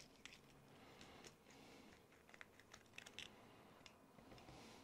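Faint, scattered light clicks and ticks of small metal RC drivetrain parts and a nut driver being handled while a Traxxas X-Maxx cush drive (slipper clutch) assembly is taken apart.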